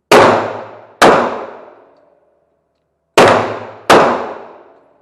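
Four gunshots at a shooting range, each sharp crack followed by a long echoing tail: two about a second apart, a pause of about two seconds, then two more in quick succession.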